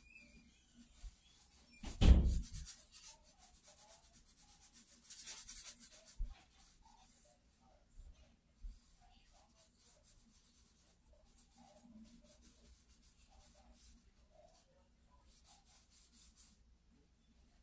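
Charcoal stick scratching and rubbing across sketchbook paper in short stretches of strokes. A single loud thump about two seconds in.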